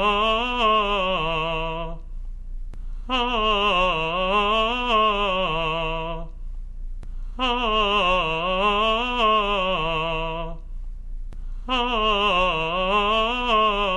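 A man's voice singing a vocal exercise: the same short run of notes repeated phrase after phrase, each about three seconds, dipping down, climbing back up and settling on a held low note, with a brief pause for breath between. A steady low hum runs underneath.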